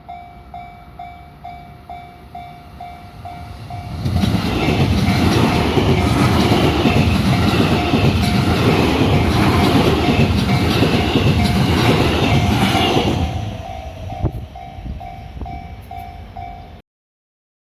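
Japanese level-crossing alarm ringing its repeated electronic clang about twice a second, while a JR Kobe Line train passes the crossing. The train is loud from about four seconds in to about thirteen and covers the bell, which is heard alone again once the train has gone.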